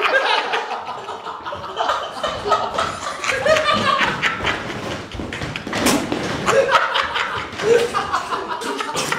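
Several men laughing hard together, with voices breaking in and a sharp smack about six seconds in.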